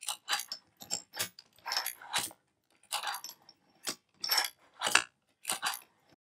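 Small antique tabletop letterpress being worked: an irregular run of short metallic clanks and clicks, a dozen or so, as the roller arm swings over the ink disc and down across the bed.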